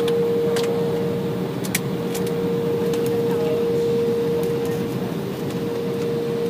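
Cabin noise inside an Embraer 175 regional jet while taxiing: a steady rush from the idling engines and air system, with a constant mid-pitched hum through it and an occasional faint click.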